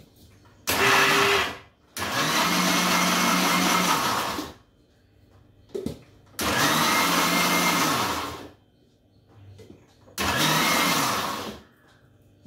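Electric mixer grinder run in four short pulses, each spinning up and winding down, coarsely grinding cooked tomatoes.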